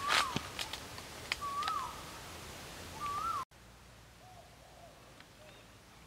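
A bird's short whistled hooting calls, three of them about a second and a half apart, each rising then falling in pitch. The sound cuts off abruptly about halfway through, leaving only a few faint, lower calls.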